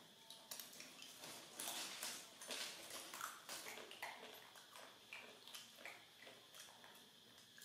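Faint crinkling and rustling of a clear plastic bag of dried snacks being handled and reached into, a string of short, irregular rustles.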